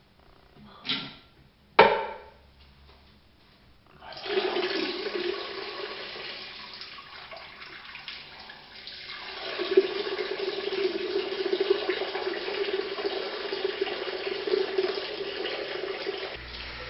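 Two sharp knocks, then a bathroom sink tap running: a steady rush of water with a steady low whine under it. The flow eases for a couple of seconds, comes back stronger, and stops shortly before the end.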